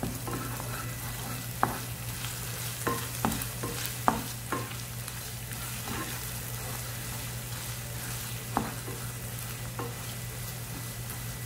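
Onions and ginger garlic paste sizzling in hot oil in a nonstick frying pan while being stirred, with irregular scrapes and taps of the spatula against the pan, the sharpest about a second and a half in, around four seconds in and near the nine-second mark.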